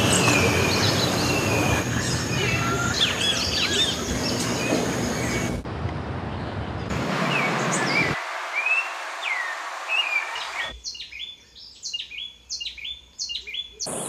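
Wild birdsong in several abruptly changing stretches. First comes a dense chorus of many chirping birds, then scattered single falling chirps, then near the end a quick run of repeated rising calls, about three a second.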